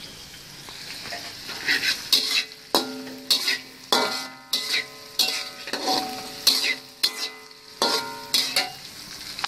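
Spatula stirring and scraping in a pan of frying gravy base, in repeated strokes over a steady sizzle. The metal pan rings briefly after several of the strokes.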